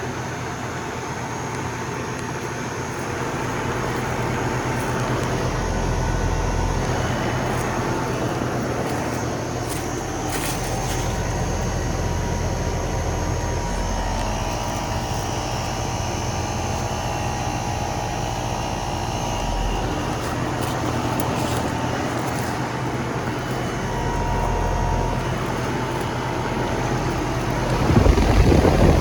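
Lennox Merit outdoor air conditioner unit running just after start-up, its LG scroll compressor and condenser fan humming steadily, building over the first few seconds and then holding level. A loud low rumble comes in near the end.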